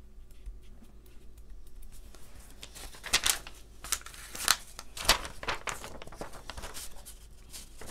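Sheet of glitter heart stickers crinkling and crackling as a sticker is peeled off its backing, with several louder sharp crackles from about three seconds in.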